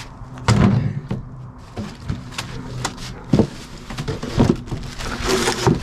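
A heavy steel welding-table leg set down with a thump on a wooden pallet about half a second in. Scattered knocks and clicks follow as a cardboard box and plastic packing are handled, with a rustling scrape near the end.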